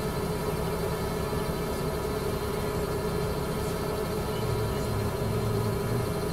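Xiaomi Mi Drone 4K quadcopter hovering, its propellers giving a steady hum with one strong even tone.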